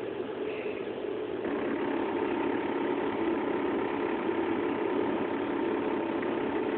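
A blackjack gaming machine playing its payout count-up sound as winnings transfer to the credit meter: a steady electronic hum with a held tone that starts about a second and a half in.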